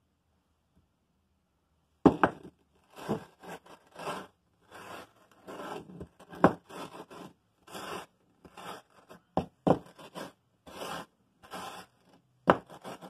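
A metal socket rubbed back and forth over sandpaper on a flat board: a run of short, gritty scrapes starting about two seconds in, one or two a second, with a few sharper, louder strokes.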